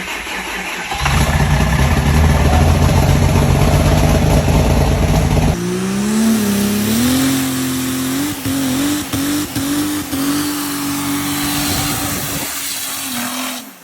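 Triple-turbo Cummins inline-six diesel in a Dodge Ram 2500 starting up: a loud, heavy rumble for the first five seconds or so, then it abruptly settles into a steadier running note that rises in pitch and holds.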